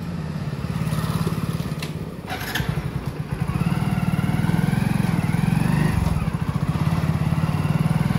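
Motorcycle engine running as the bike pulls away and rides along, its low note pulsing steadily. A short clatter comes about two and a half seconds in.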